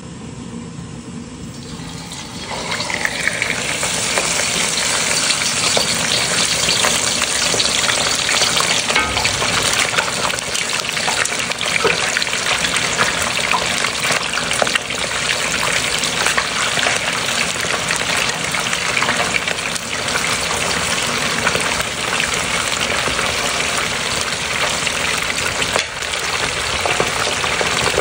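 Fish frying in hot oil heated to about 375°F: a loud, steady sizzle full of fine crackles. It swells about two and a half seconds in as the fish goes into the oil.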